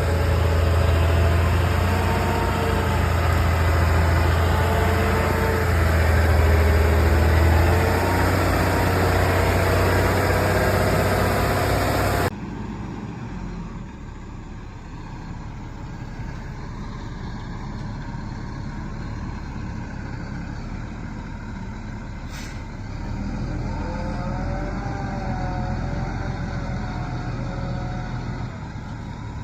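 Logging truck's diesel engine running loud and close with a deep steady drone. About twelve seconds in, it cuts suddenly to a quieter engine sound, which rises a little in pitch and wavers a few seconds from the end.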